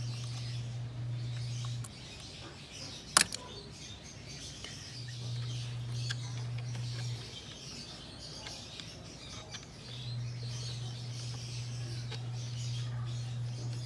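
Birds chirping, with a low steady hum that comes and goes three times. A single sharp click about three seconds in comes from screwdriver work on the plastic air-intake fittings.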